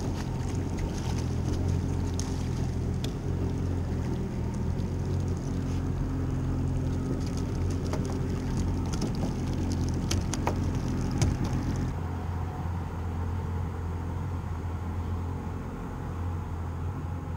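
Outboard motor of a small center-console fishing boat running at a steady speed, with water and wind rushing past and a few sharp knocks. About twelve seconds in, the deepest rumble and the upper hiss drop away.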